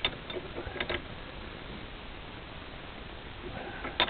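Bench vise being tightened to crush a copper ferrule onto a heavy welding cable: a few sharp clicks and knocks from the vise, a cluster in the first second and one loud click near the end.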